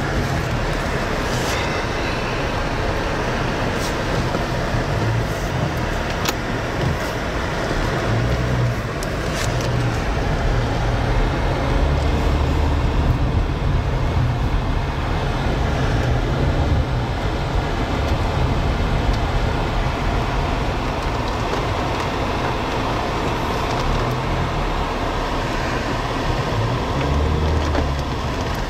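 Steady loud rush of vehicle and storm noise with deep low rumbling, and a few sharp ticks in the first ten seconds.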